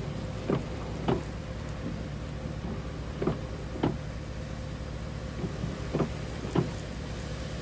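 Steady low rumble of an idling vehicle, with pairs of short knocks about half a second apart that come around every three seconds.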